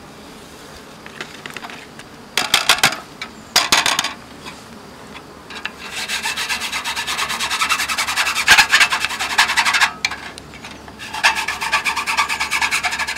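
A brush scrubbing the wire-mesh screen of a wooden pollen-trap drawer in rapid back-and-forth strokes, clearing off leftover pollen pellets. There are two short scraping bouts in the first few seconds, then two long bouts of quick strokes: one from about six to ten seconds in, and one again near the end.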